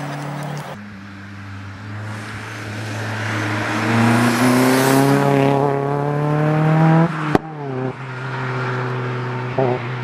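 Turbocharged Opel Astra rally car's engine accelerating hard, its pitch rising steadily for several seconds, then a sharp crack at an upshift about seven seconds in as the revs drop, after which it pulls on at a lower, steady pitch.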